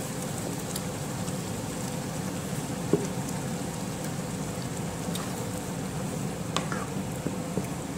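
Ground-meat tomato spaghetti sauce simmering and sizzling in a frying pan as a wooden spoon stirs it, with a couple of sharp knocks of the spoon against the pan.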